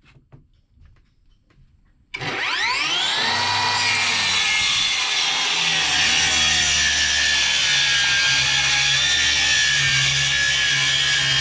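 Electric power tool motor starting about two seconds in after a few faint taps, spinning up quickly with a rising whine, then running steadily at full speed.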